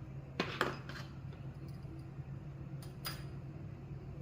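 A few light clicks and taps as small clipper parts, the case and motor, are handled and set down: two close together about half a second in, another near a second, and one about three seconds in, over a steady low hum.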